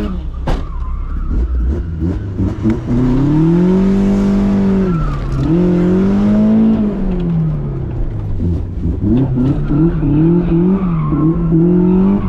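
A 1980s Toyota Corolla's engine, heard from inside the cabin, revving hard and falling away in long sweeps while the car is driven around a cone course, then blipped up and down in quick short bursts in the second half, as in throttle work while sliding the car.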